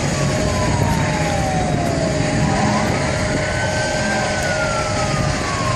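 Emergency vehicle siren in a slow wail: one tone falling in pitch, rising again about halfway through, then falling once more, over the steady rumble of street traffic.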